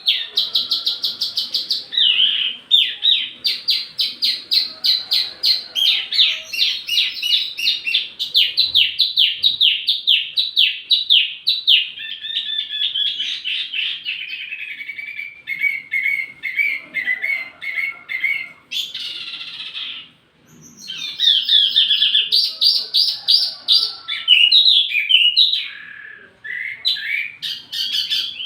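A small songbird known to Indonesian bird keepers as the wambi mini singing a long, loud, high-pitched song of fast repeated chirps running into rapid trills. The song stops briefly about twenty seconds in, then picks up again.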